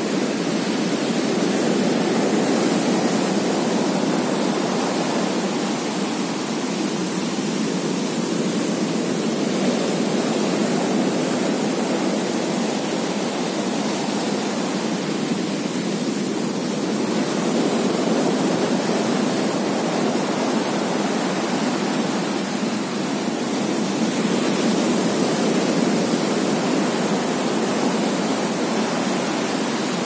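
Ocean surf breaking close to shore: a steady rush of whitewater that swells and eases slowly.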